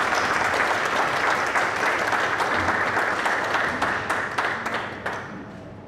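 Audience applauding steadily, dying away about five seconds in.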